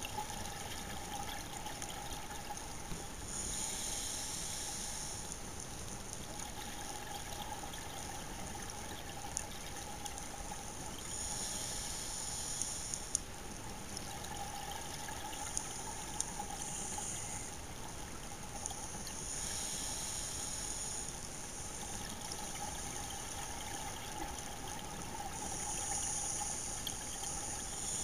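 Scuba regulator exhalation bubbles heard underwater: a bubbling rush of about one to two seconds that comes back five times, every few seconds, over a steady underwater hiss and a faint constant tone.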